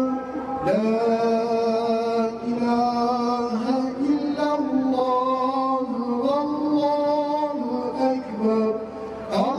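A solo voice chanting a slow, ornamented melody in long held notes, with brief pauses between phrases about half a second in and near the end.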